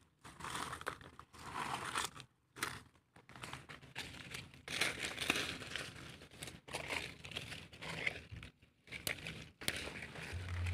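Dry fallen leaves crackling and crunching as hands rummage through the leaf litter and soil, in irregular bursts with short pauses. A low hum comes in near the end.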